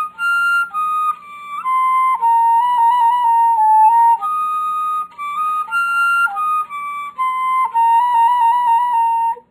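Solo flute playing a lilting melody of held notes with quick trills, standing in for the nightingale's song.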